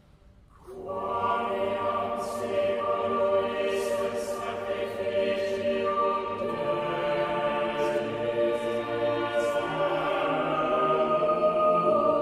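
Background music: a choir singing long, held chant-like chords, coming in about a second in.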